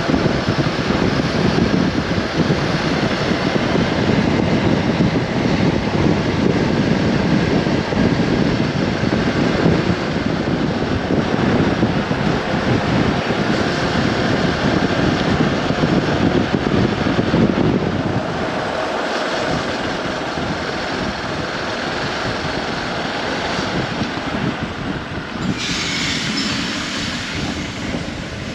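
Riding a Hero Xpulse 200 4V motorcycle: wind buffeting the microphone over the running engine and road noise, a steady rumble. The rumble eases a little about two-thirds of the way through, and a higher hiss joins near the end.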